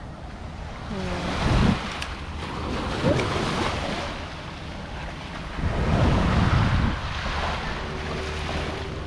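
Small waves breaking and washing up a pebble beach, with wind gusting on the microphone; two louder rumbling gusts come about a second and a half in and again around six seconds in.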